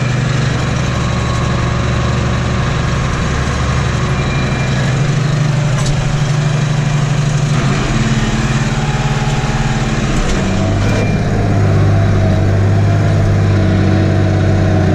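Tractor diesel engine running steadily under load while pulling a plough through the soil, heard from inside the cab. Its note shifts a few times, about five, eight and ten seconds in, and grows slightly louder near the end.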